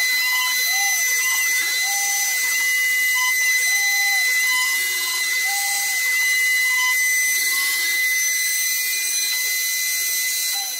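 CNC router cutting MDF: the trim-router spindle runs with a steady high whine and cutting hiss, while the axis drive motors add repeated rising-and-falling tones as the bit traces curved outlines.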